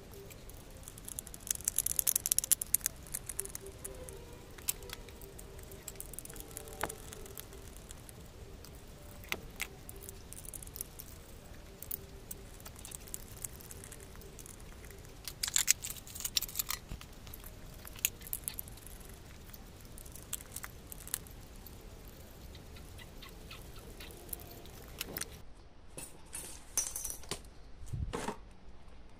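Scattered small clicks and rattles of hands handling small hardware and wiring, with two busier spells of rattling, about two seconds in and around sixteen seconds.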